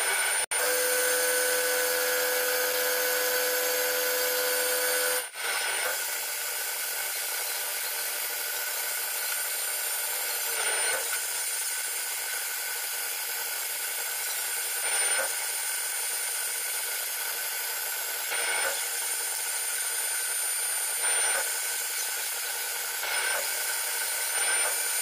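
CNC lathe running a roughing cycle on a metal bar: a steady whine of spindle and cutting tool, with brief swells every few seconds as the tool moves on to each new pass. The sound cuts out abruptly twice, once just after the start and again about five seconds in.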